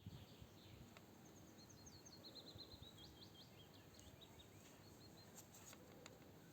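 Faint birdsong over a steady outdoor background: a small bird sings a rapid run of short, high chirps for a few seconds, with a few light clicks near the end.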